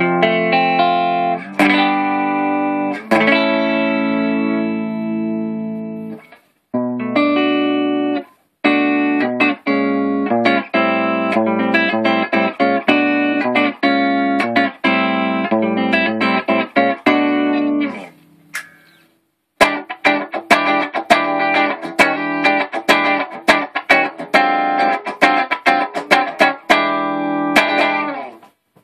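Gibson Les Paul electric guitar played through a Marshall JCM800 4210 50-watt combo amp. Chords ring out for several seconds, then give way to choppy, sharply picked chord riffing with short stops. After a brief pause about two-thirds of the way through, short staccato chord stabs follow.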